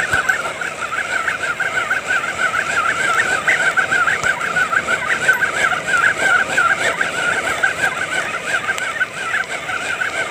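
Spinning reel being cranked steadily to retrieve line with a fish on, giving a continuous whirring whine that wavers several times a second.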